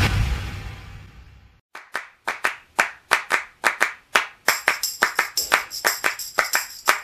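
Hands clapping in rhythm, starting about two seconds in and picking up speed, with a steady high ringing tone joining about halfway. Before the clapping, a short burst of noise fades away over the first second and a half.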